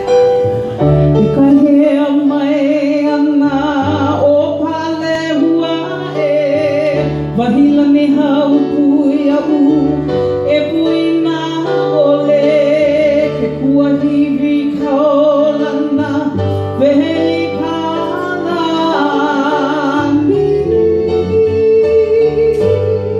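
Woman singing a Hawaiian song with a wide vibrato over instrumental accompaniment.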